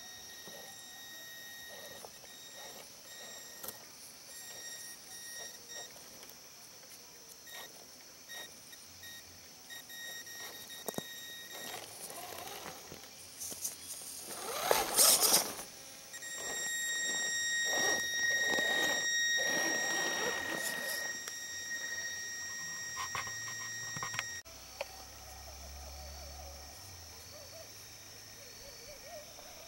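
Axial SCX10 Honcho RC rock crawler's electric motor and speed controller whining at a fixed high pitch as it crawls, with its tyres scrabbling over loose dirt and rocks. A louder rough stretch of scraping about halfway through.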